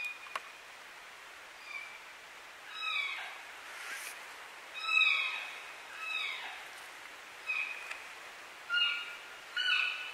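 A string of high, nasal mewing calls, roughly one every second, each sliding down in pitch.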